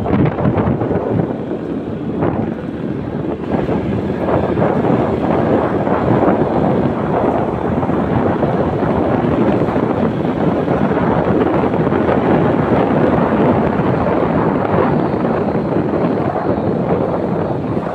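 Wind rushing over the microphone on a moving motorbike, with the bike's engine running underneath, steady throughout.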